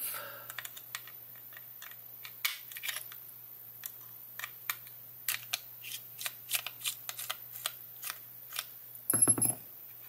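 Small screwdriver backing out the daughter-board screws of a Mionix Naos 7000 mouse: irregular light clicks and ticks of the bit and the plastic parts being handled, with a louder clatter about nine seconds in.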